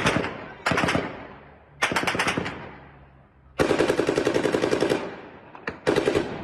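Automatic gunfire in an armed clash: about five rapid bursts, the longest lasting about a second and a half near the middle, with a single shot just before the last burst. Each burst trails off in echo.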